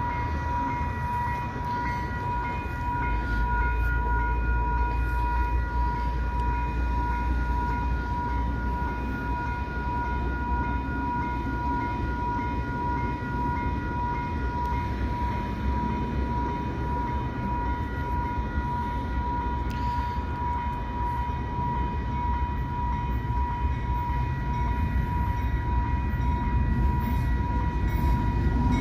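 Railroad grade-crossing bell ringing steadily over the low rumble of an approaching freight train led by General Electric diesel locomotives. The rumble grows louder near the end as the train nears the crossing.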